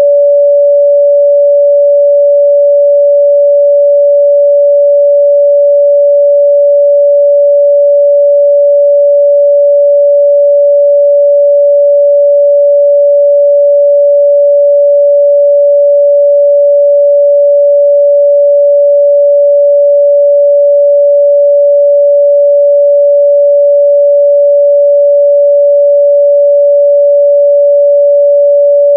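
A continuous 574 Hz sine-wave test tone, loud and unchanging, a single pure pitch with no overtones.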